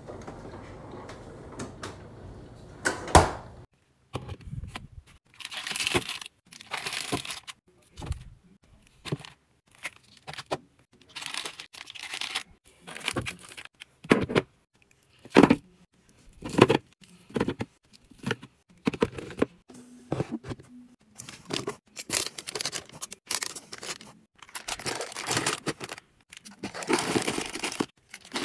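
Foil and plastic snack wrappers rustling and crinkling as wrapped chocolates and snack bars are handled and set into a drawer and a plastic bin, in many short separate bursts. One sharp knock about three seconds in.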